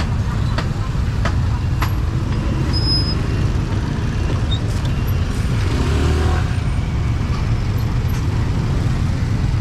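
Street traffic: a steady low rumble of engines going by, swelling briefly about six seconds in, with a few sharp clicks.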